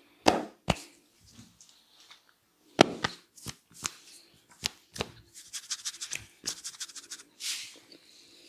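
Hands working on a head and neck in a barber's massage: a string of sharp slaps and taps, the loudest about a third of a second in and again near three seconds, then a quick run of lighter chopping taps, ending with a short rub.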